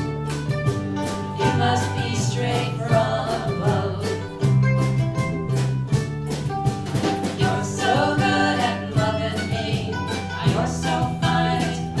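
A live acoustic band plays a country-style song on strummed ukuleles and guitar over steady low bass notes, with a woman's voice singing phrases over it.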